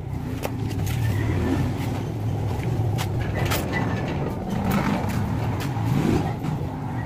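Low, steady rumble of a motor vehicle's engine running, with slight rises in pitch, and a few sharp clicks over it.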